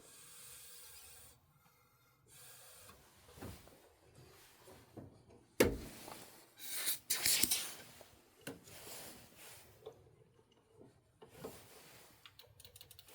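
Hands handling furnace parts: scraping and rubbing, with one sharp knock about five and a half seconds in, then a second or so of louder scraping.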